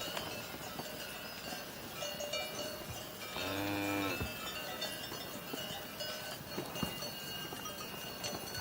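A cow moos once, a short call about three and a half seconds in, while cowbells clink on and off.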